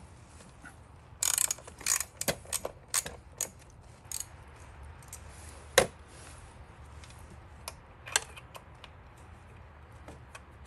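Hand socket ratchet clicking in short runs as it backs bolts out of the Segway X2's aluminium side plate, with one sharper knock about six seconds in.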